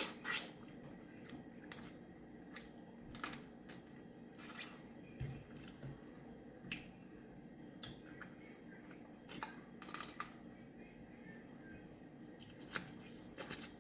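Steamed shellfish being eaten: scattered sharp cracks and clicks of shells being broken and picked apart, with chewing.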